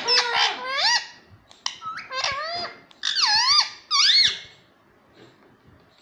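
Indian ringneck parakeet calling: a quick run of high, squeaky chirps and chattering notes that sweep up and down in pitch, falling quiet about four and a half seconds in.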